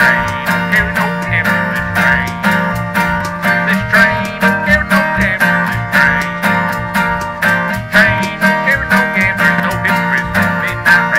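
Instrumental break of a bluegrass-style gospel tune: acoustic guitar strumming and a washboard scraped in a steady, quick rhythm, under a high wavering harmonica lead.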